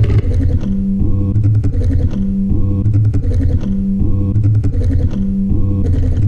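Old sewing machines, amplified and played as a musical piece: a deep pulsing drone with a short organ-like tone sounding about every second and a half, over faint regular ticking.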